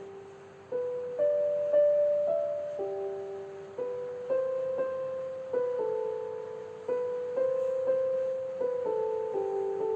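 Slow, gentle background piano music: a simple melody of single notes, each struck and left to ring and fade before the next.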